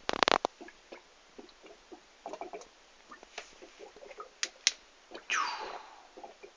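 Beer fermenters actively fermenting: airlocks and a blow-off tube venting CO2 into sanitizer, bubbling and popping irregularly with sharp clicks. A longer falling gurgle comes a little after five seconds in.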